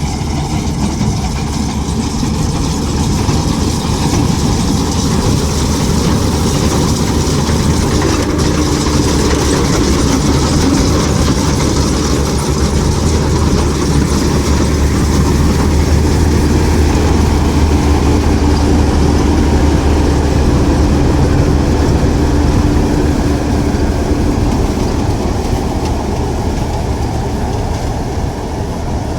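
GAM mini combine harvester running steadily at working speed, its engine and mechanism making a loud continuous machine noise that swells slightly in the middle.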